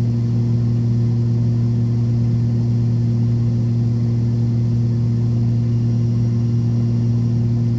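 Twin turbocharged six-cylinder piston engines of a Cessna 340 droning steadily in flight, heard inside the cabin: a strong, even low hum with a few fainter higher tones above it.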